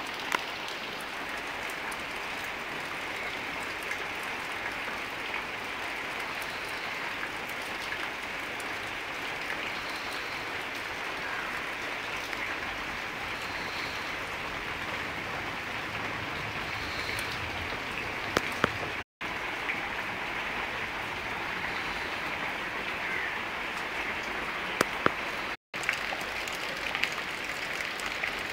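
Heavy rain falling steadily on ground, puddles and palm foliage, an even hiss with a few sharper drip splashes. The sound cuts out briefly twice, about two-thirds of the way through and near the end.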